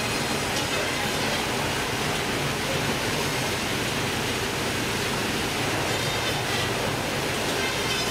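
Steady, even rushing noise of a shipboard fish-processing line running: the machinery and plastic modular conveyor belt carrying whole fish, with no distinct knocks or changes.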